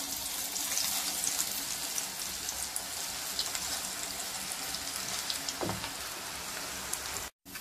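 Beetroot pakoda batter deep-frying in hot oil in a steel kadai as pieces are dropped in: a steady sizzle with many small crackles, which cuts off abruptly near the end.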